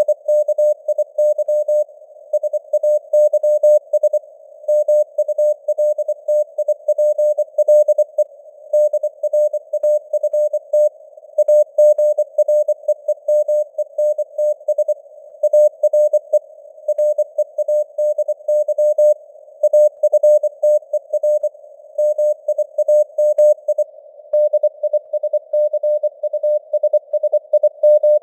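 Morse code (CW) at 24 words per minute: a single steady tone keyed on and off in rapid dots and dashes, spelling out news text. It sits in a narrow hiss of simulated radio noise, and the signal strength fades up and down (QSB).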